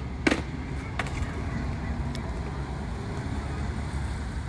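Outdoor background noise, a steady low rumble, broken by one sharp, loud clack about a quarter of a second in and a lighter click about a second in.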